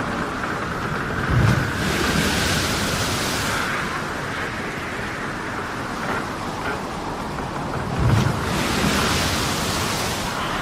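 Storm-at-sea ambience: a steady rush of wind, rain and surging water. Two heavy low booms come about 1.5 seconds in and again about 8 seconds in, each followed by a swelling hiss of breaking water.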